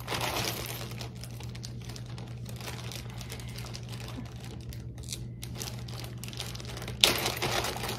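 Plastic parcel packaging crinkling and crackling as it is opened and handled, with a louder rustle about seven seconds in. A steady low electrical hum runs underneath.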